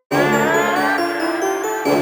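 Background music that starts suddenly just after the start: a melody over steady low notes.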